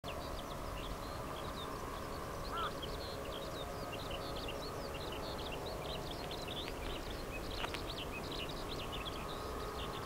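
Many small birds chirping in quick, constant short notes over a steady background hum and low rumble, with one short looping call about two and a half seconds in and a brief click near the end.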